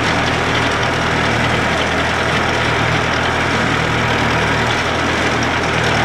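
Tractor engine running with a tractor-drawn Zago feeder wagon at work, discharging a chopped bale as feed along a feed barrier: a loud, steady mechanical whirr over the engine's low drone.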